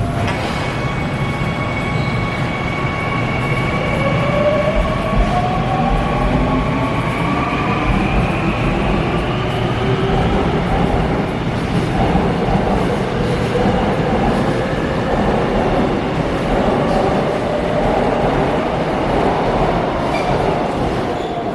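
Seoul Metro Line 2 subway train heard from inside the car: its electric traction motors whine in several tones that glide in pitch over a steady rumble of wheels on track, as the train runs into Gangnam Station.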